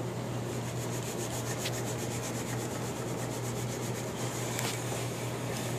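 Soft rubbing over a steady low hum. During the first four seconds it comes as a quick run of light ticks, about nine a second.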